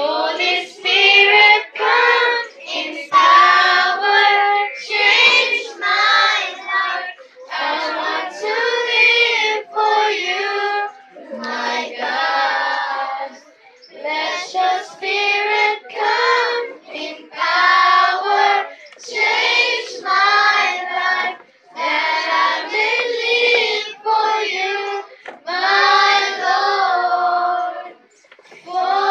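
A group of children singing a worship song together, in sung phrases with brief breaks between them.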